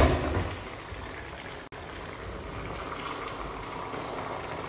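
Pan of yam pottage simmering with a steady bubbling hiss, with a wooden spoon stirring through it near the end. A short loud knock comes right at the start.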